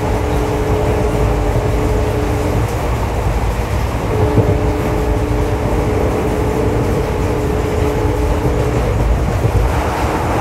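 Indian Railways ICF passenger coach running along the track, heard from on board: a steady low rumble of wheels on rail. A steady two-note tone sounds twice, for a few seconds each time.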